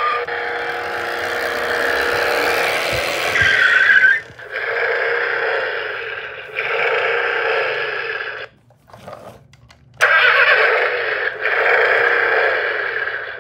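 Battery-powered toy car's small speaker playing revving-engine sound effects in repeated segments, with a rising-and-falling squeal about three and a half seconds in. The sound drops out for about a second and a half about two-thirds through, then comes back suddenly and loud.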